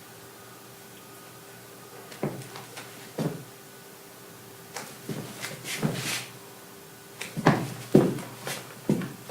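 Foley take being performed: irregular knocks, thuds and scuffs starting about two seconds in, sparse at first, with some rustling in the middle, then a quicker run of the loudest knocks near the end.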